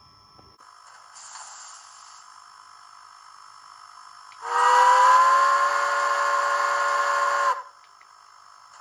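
Sound of an H0n3 Colorado & Southern Mogul model steam locomotive: a hiss of steam, then one long steam whistle blast lasting about three seconds, rising slightly in pitch as it starts and cutting off sharply.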